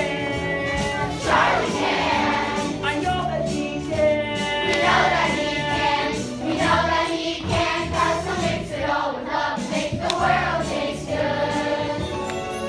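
A cast of young performers singing together in chorus over instrumental accompaniment with a steady bass line.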